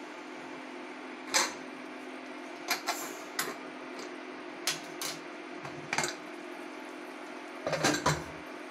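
Aluminium pressure cooker lid being handled, turned and lifted off the pot: a series of sharp metal clinks and knocks, with a cluster near the end, over a steady low hum.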